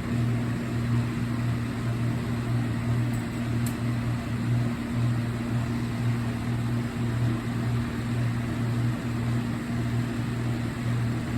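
Steady low hum with a faint higher overtone, even and unbroken, with no alarm or beeping.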